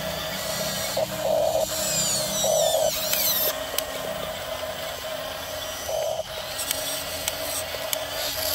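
RC model bulldozer's small electric track motors and gearboxes whirring in short spurts over a steady whine as it works a gravel pile, the pitch rising and falling as it speeds up and slows, with a few light clicks near the end.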